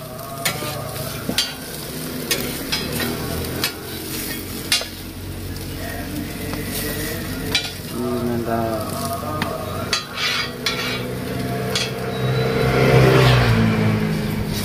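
Stacked slices of roti bakar sizzling in margarine on a hot flat griddle while two metal spatulas press and turn them, with sharp scrapes and clinks of metal against the griddle. A low rumble swells up near the end.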